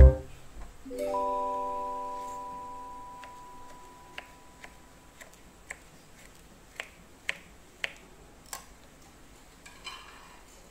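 A held keyboard chord from the background music rings and fades out over the first few seconds. Then a kitchen knife chops a cucumber on a wooden cutting board: about seven sharp taps at uneven intervals, followed near the end by a faint scrape as the cubes are gathered.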